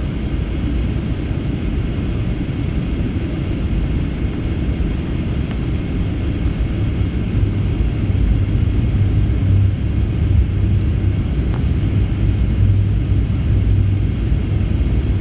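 Steady cabin noise inside a Boeing 737-800 in flight: a low rumble of engines and airflow, with a deep hum that grows stronger about halfway through.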